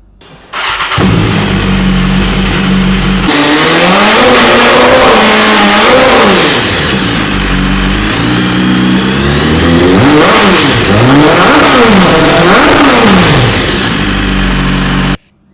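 BMW S1000RR inline-four superbike engine through an aftermarket exhaust, idling and then revved in a run of quick throttle blips, each one rising and falling in pitch, before settling back to idle. The sound cuts off suddenly near the end.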